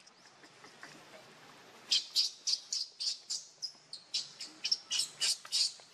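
A quick series of short, high-pitched chirping calls, about three or four a second, starting about two seconds in.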